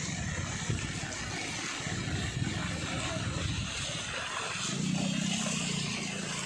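Vehicle engine running on a flooded street over a steady hiss of heavy rain and water. The engine's low hum grows loudest about five seconds in.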